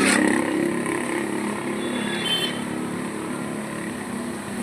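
A motor vehicle engine running steadily and slowly fading, with a brief high tone about two seconds in.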